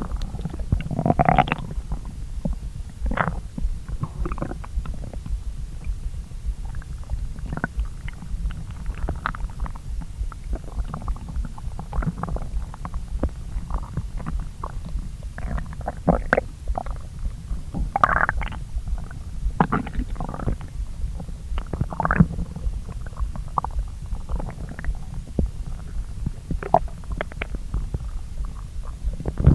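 Human stomach gurgling as it digests a meal eaten on a long-empty stomach: many short, irregular gurgles, several a second, over a constant low hum, with louder ones now and then.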